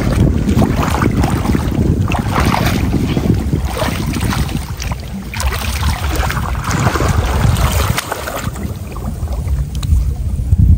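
Water splashing and sloshing as a fish trap net and its bamboo stake are worked through shallow floodwater by someone wading, with wind rumbling on the microphone. The splashing thins out near the end.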